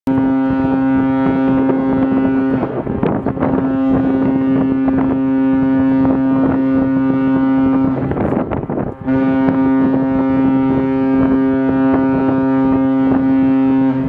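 Large cruise ship's horn sounding long, deep blasts in a steady chord, with a short break about two and a half seconds in and a pause of about a second around eight seconds.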